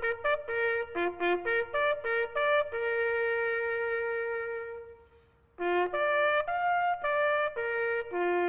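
A solo bugle playing a call on its open notes: quick runs of notes, then a long held note that fades out about five seconds in, a short pause, and more quick notes.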